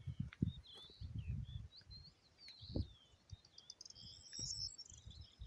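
Small songbirds chirping in short, varied calls, with a quick high trill a little after four seconds in. Irregular low rumbles run underneath.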